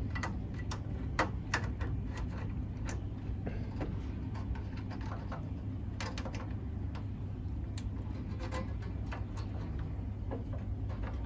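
Scattered small metallic clicks and taps of fingers and a thin tool working in the pedal cluster mount of a VW Beetle floor-pan tunnel, fishing for a dropped return spring, over a steady low rumble.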